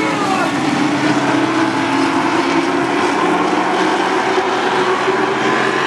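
A pack of short-track stock-body race trucks' engines running at speed around the oval, several engines blending into one steady drone.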